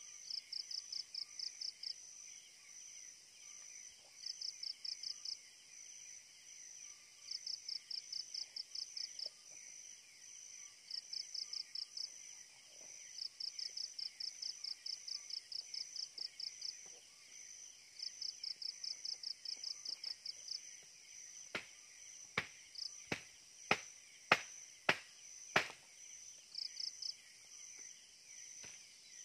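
Night insects chirping in short bursts of rapid pulses, repeating every second or two over a steady high ticking. Late on, about ten sharp knocks come in irregular succession and are the loudest sounds.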